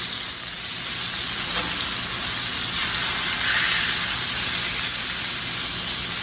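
Flour-dredged chicken cutlets sizzling steadily as they pan-fry in olive oil and butter on medium heat.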